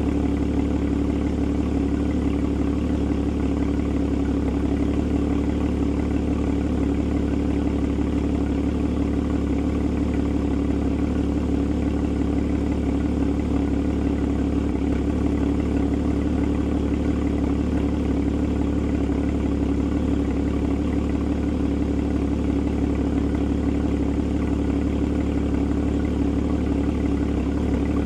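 Porsche Boxster (981) flat-six engine idling steadily, with no revs.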